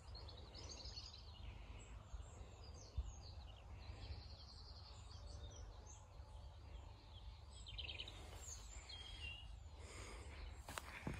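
Quiet outdoor ambience: small birds chirping and trilling now and then over a low, steady rumble.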